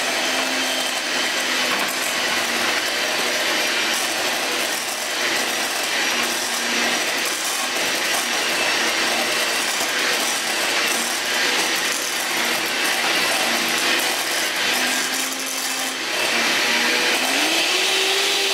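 Electric hand mixer running steadily, its beaters mashing baked potato filling in a stainless steel bowl. Near the end the motor's pitch rises and then falls.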